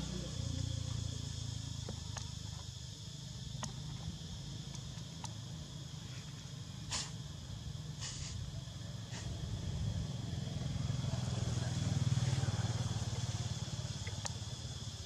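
Outdoor ambience: a low engine-like rumble, like distant motor traffic, swelling about two thirds of the way through, under a steady high insect drone, with a few short clicks.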